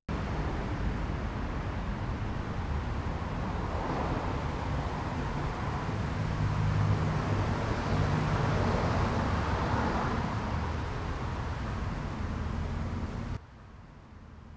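Road traffic on a town street, a steady rumble and hiss that swells through the middle and eases again. About 13 seconds in it cuts suddenly to a much quieter street background.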